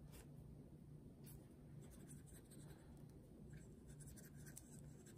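Faint brushing and dabbing of a water brush on watercolor paper, spreading watercolor-crayon paint in short strokes, over a low steady hum.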